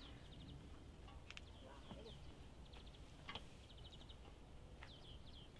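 Faint birdsong in near silence: a small bird repeats a high phrase about three times, each a falling chirp followed by a quick dry trill.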